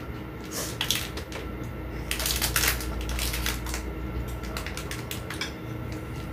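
A balut (boiled fertilised duck egg) having its shell cracked and picked off by hand: a string of small, irregular crackles and clicks.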